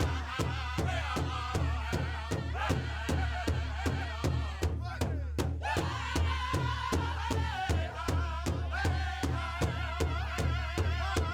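Live contemporary Indigenous performance music: a steady drumbeat of about three to four beats a second, with wavering singing voices over it and a low drone underneath.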